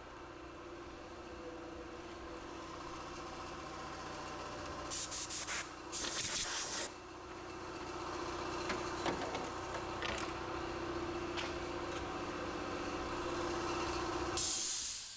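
Mercedes OM611 2.2 CDI diesel engine running steadily. Short bursts of hiss come about five and six seconds in, a few clicks follow, and a louder hiss near the end, after which the sound falls away.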